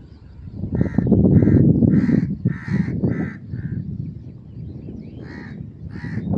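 Crows cawing: a quick run of about six harsh caws, a short pause, then two more near the end. A low rumbling noise runs underneath.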